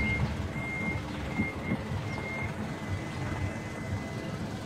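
An electronic beeper sounding short high beeps about every two-thirds of a second, which run into one steady tone about halfway through, over a low rumbling noise of wind on the microphone.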